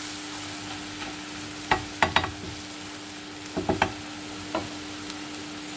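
A spatula stirring scrambled egg and shrimp in a frying pan, over a steady sizzle. The spatula knocks and scrapes against the pan in two quick clusters, about two seconds in and again near four seconds, with one more click shortly after. A steady low hum runs underneath.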